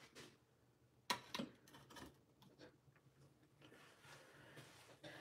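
Near silence: room tone with a few faint, short clicks and taps, the sharpest about a second in.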